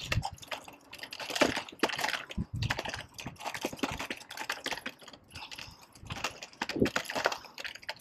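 Rental bike rattling as it rolls over sidewalk paving: the front basket and handlebar fittings clatter in a rapid, irregular run of small clicks and knocks.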